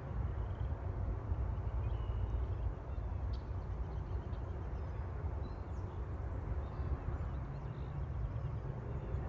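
Low, uneven wind rumble on the microphone, with a few short, faint bird calls scattered through it.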